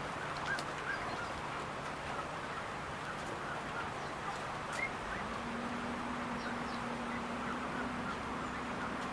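Birds calling in short, faint chirps over outdoor background noise, with a steady low hum that steps up in pitch about halfway through.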